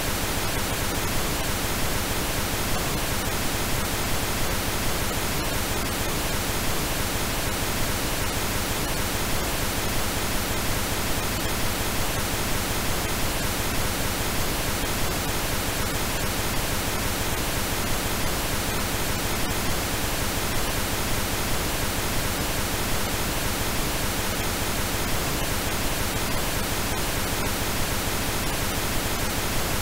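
Steady, unbroken pink noise, a generated 'healing frequency' track that its maker offers as an approximation of artichoke leaf's molecular magnetic field.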